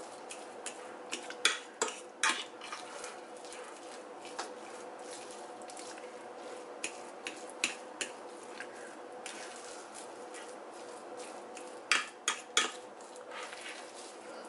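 Metal fork mashing cooked sweet potatoes in a glass baking dish: soft squashing and irregular clicks of the tines on the glass, with clusters of louder clinks about a second in and again near the end.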